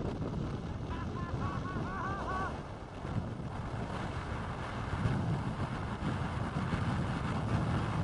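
Gale-force wind buffeting the microphone: a heavy, gusting low rumble that grows stronger about five seconds in.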